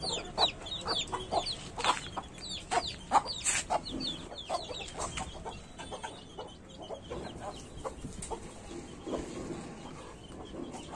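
Desi chickens clucking, with chicks peeping in quick, high, falling cheeps during the first couple of seconds. The peeps then thin out, and short clucks continue.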